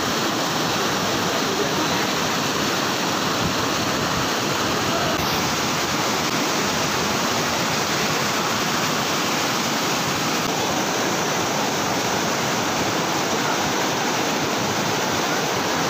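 Swollen, muddy stream cascading over boulders in small falls: a loud, steady rush of whitewater, with a slight shift in its tone about five seconds in.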